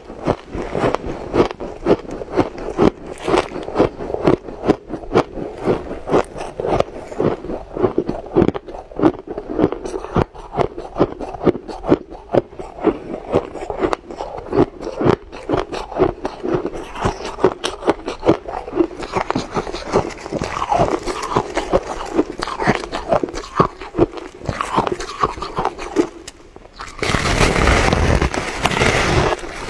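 Close-up crunching of crushed ice being chewed in the mouth: a fast, uneven run of crisp crunches, several a second. Near the end comes a louder, denser crunch lasting about two and a half seconds as a mouthful of packed powdery frost ice is bitten.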